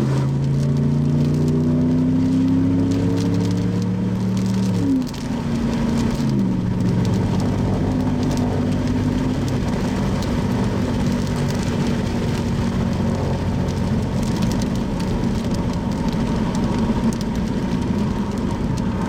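Car engine running under load, its pitch dropping in steps about five seconds in and again at six and a half, like gear changes while driving, over a steady hiss.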